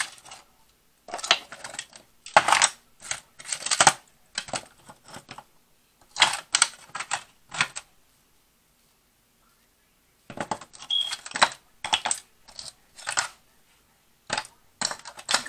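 Sharp clicks and crackles of boiled crab shells being broken and picked apart by hand, with shell pieces rattling against aluminium foil pans. They come in quick clusters, with a pause of about two seconds a little past the middle.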